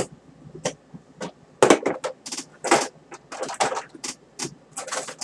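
A plastic shopping bag rustling and crinkling in irregular bursts as someone rummages through it.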